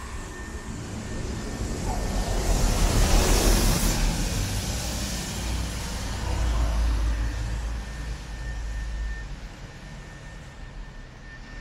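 Mercedes-Benz city bus passing close on a wet street. The hiss of its tyres on the wet road swells to a peak a few seconds in, then its engine rumbles low as it goes by, and it fades to steady traffic noise.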